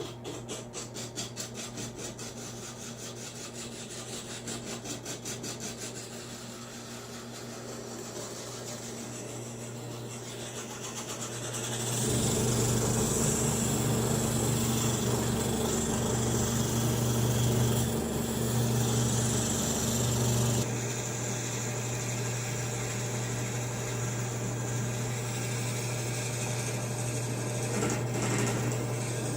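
Drill press motor running steadily while a hand file scrapes against a spinning steel pin, turning it down as on a lathe. The scraping pulses rhythmically in the first few seconds. It grows louder and fuller for about eight seconds in the middle, starting and stopping suddenly.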